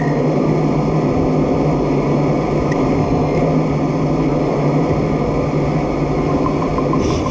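Armattan Rooster FPV quadcopter's T-Motor F80 brushless motors and propellers spinning at a steady idle while armed and resting on the ground: an even whirring hum with a constant low tone.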